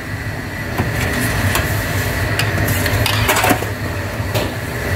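Steady low machine hum with a faint high whine, typical of commercial kitchen equipment, with scattered clicks and knocks of utensils against stainless-steel trays, the loudest cluster a little past the middle.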